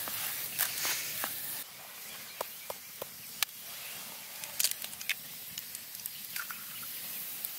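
Scattered small clicks and rustles from hands handling things, over a steady hiss that changes abruptly about one and a half seconds in.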